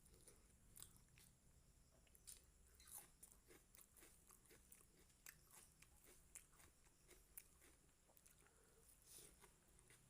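A person chewing a mouthful of chicken liver and gizzard curry with rice, giving many small irregular mouth clicks.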